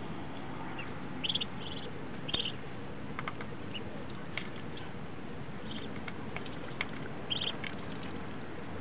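Muscovy ducklings, two to three weeks old, giving short high peeps in little clusters, about four times, with scattered light clicks as they feed from a bowl of soaked pellets.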